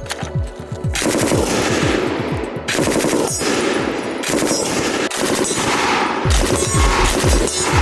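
A PKM belt-fed machine gun firing fully automatic, with rapid reports in several long bursts separated by short pauses.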